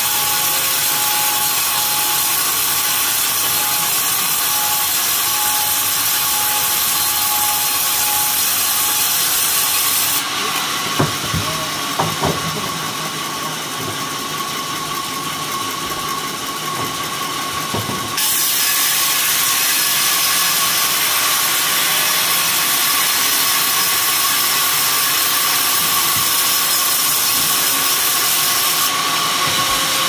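Stationary band saw running and ripping coconut palm timber, a steady hissing saw noise over a constant whine. About ten seconds in the cutting noise thins for several seconds, with a few knocks of boards being handled, then the full cut resumes.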